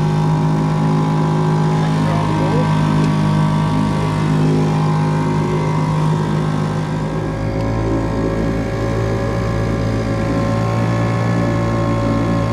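Small fishing boat's engine running steadily under way. Its note shifts slightly about seven seconds in.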